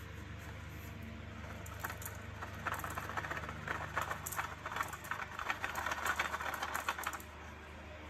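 Pine needles and grit rattling and pattering out of a vacuum cleaner's turbo brush-roll nozzle as it is shaken and tapped over cardboard: a fast, irregular run of small clicks for about five seconds. The needles are the debris that jams the nozzle and stops the vacuum.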